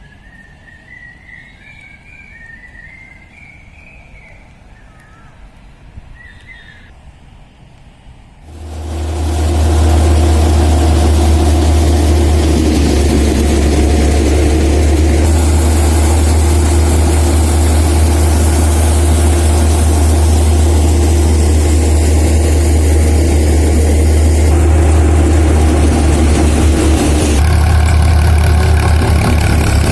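Quiet for the first eight seconds or so, then a heavy farm machine's diesel engine comes in loud and runs steadily at a constant speed, with a deep low hum.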